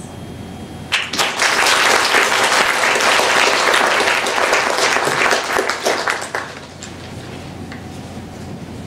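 Theatre audience applauding. The clapping starts suddenly about a second in, holds, then dies away after about five and a half seconds, leaving low room noise.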